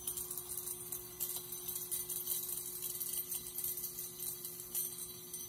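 High-voltage AC discharge in a bottle of argon at atmospheric pressure, fizzing and crackling as purple streamers flicker through the gas. The flyback transformer drive hums steadily underneath.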